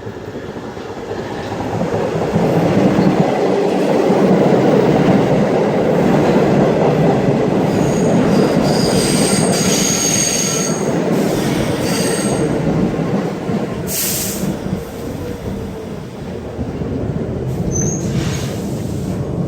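New York City subway train running on the rails: a loud, steady rumble that builds over the first few seconds, with high-pitched steel wheel squeal about eight to thirteen seconds in and brief hisses near the end.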